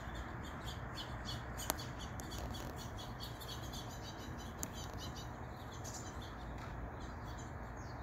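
Small songbirds chirping, with many quick high-pitched chirps in rapid succession over a steady background hiss. There is one sharper, louder chip about two seconds in.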